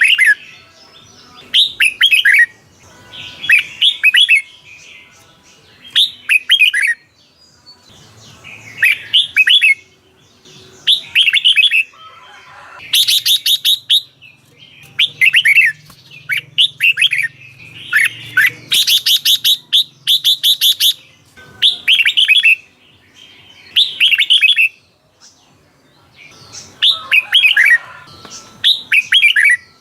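Red-whiskered bulbul singing: short phrases of quick, falling whistled notes repeated every second or two. Twice these give way to a stretch of rapid, very high chattering notes.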